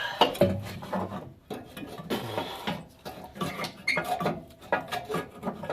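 Irregular metallic clanking and scraping as a loosened exhaust manifold is worked free and handled.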